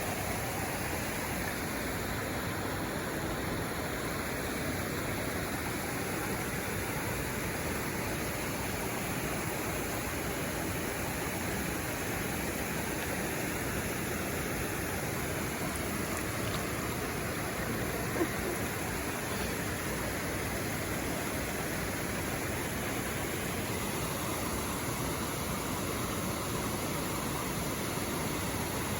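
River water rushing over rocks: a steady, even rush of noise with no breaks.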